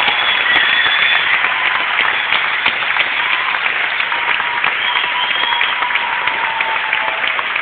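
Concert audience applauding, a dense mass of clapping.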